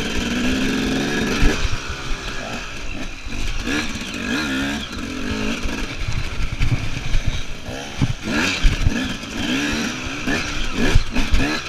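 KTM EXC enduro motorcycle engine revving up and down repeatedly under throttle, with several sharp knocks in the second half.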